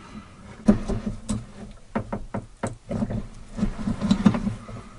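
Steel F-clamps being fitted and tightened on plywood: a series of sharp knocks and clicks, several close together about two seconds in, then a denser run of knocks near the end.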